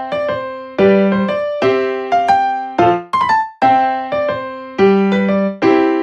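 Piano music: short phrases of struck notes and chords, each ringing out and fading before the next.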